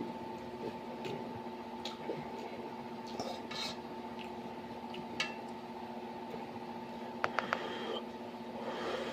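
Close-up eating sounds from someone working through a plate of pancit canton instant noodles, with scattered short mouth noises. About seven seconds in, a utensil clinks three times in quick succession against the dish. A steady hum runs underneath throughout.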